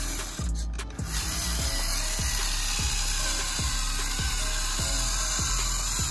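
Background music with a steady beat, about one and a half beats a second, with a brief drop in the high end about half a second in.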